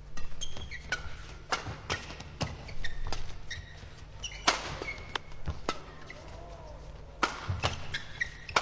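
Badminton doubles rally: rackets striking the shuttlecock again and again at an uneven pace, with short squeaks of shoes on the court floor between the hits.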